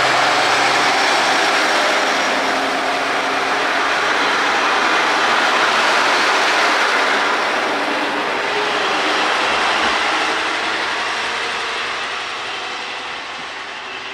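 KiHa 37 diesel railcar, two cars, pulling away under power: the engine and running gear loud as the cars pass close by, then the sound fading steadily over the last few seconds as the train draws away.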